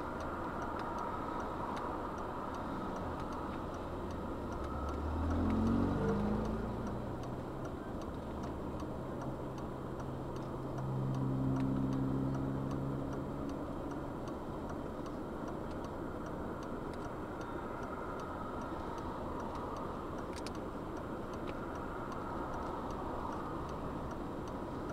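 Steady hum inside a stopped car with its engine idling, under a faint, regular ticking. A passing vehicle swells up and fades twice, about six and about twelve seconds in.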